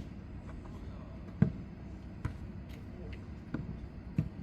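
Jokgu ball being kicked and bouncing on the court during play: a sharp thud about a second and a half in, then a few lighter thuds.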